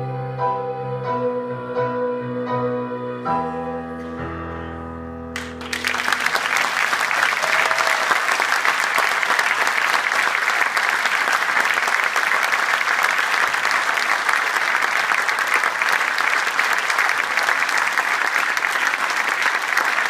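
Piano playing the last chords of the song and ending on a held chord; then an audience applauds, steady and loud, from about five seconds in.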